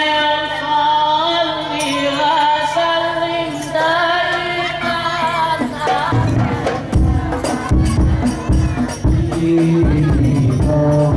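A man sings a slow, melismatic Islamic devotional chant solo through a microphone. About six seconds in, a hadrah group comes in: rebana frame drums play a rhythm and more voices join the singing.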